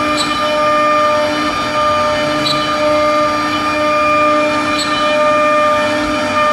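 Azanelli electric spindle of a CNC wood router whining at a steady pitch as a 12 mm ball-nose bit carves a relief into pine, with the rasp of the cut under it.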